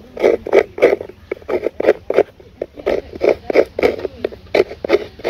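Fresh coconut being grated by hand: quick, even scraping strokes, about three to four a second.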